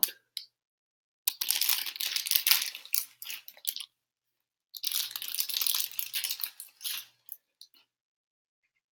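Plastic and cardboard packaging rustling and crinkling in two bursts of about two and a half seconds each, as controllers are pulled out of their wrapping.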